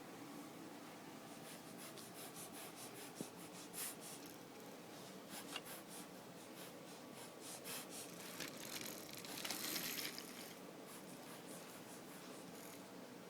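Faint irregular clicking and rattling of small hard objects, with a short rustling burst about nine and a half seconds in.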